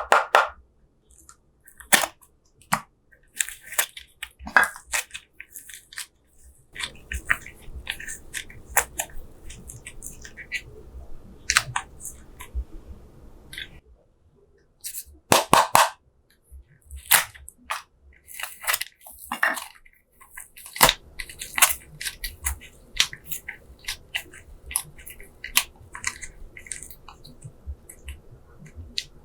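Slime being squeezed and worked by hand, giving a long run of sticky clicks, pops and crackles.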